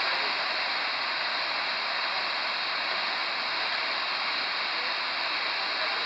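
Manavgat waterfall's whitewater rushing as a steady, unbroken wash of falling and churning water.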